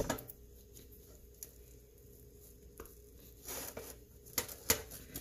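Metal springform pan base clinking and scraping against a plate as it is worked up off a turned-out quiche: a sharp clink at the start, a few light taps, a short scrape past the middle and two more clicks near the end.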